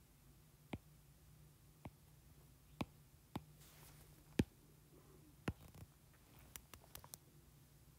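Taps on an iPad's glass screen, each a short sharp click, about ten in all at uneven spacing with a quick run of four near the end, as points of a path are placed and panels are opened.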